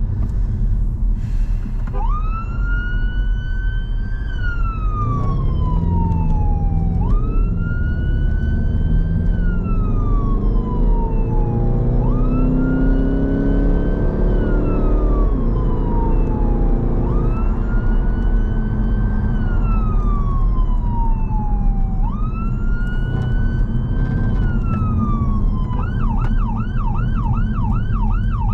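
Emergency response car's electronic siren on a slow wail, each cycle jumping up, climbing briefly and then falling away about every five seconds, switching to a fast yelp near the end. Engine and road noise underneath, heard from inside the car, with the engine note climbing as it accelerates midway.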